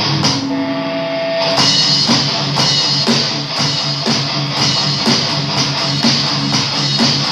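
Electric guitar playing a metal riff over drums: a chord rings out for about a second near the start, then the riff picks back up with a steady drum beat under it.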